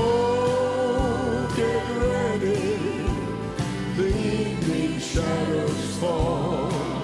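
Gospel song performed live: singers hold long notes with vibrato over piano and bass, with a low drum beat about once a second.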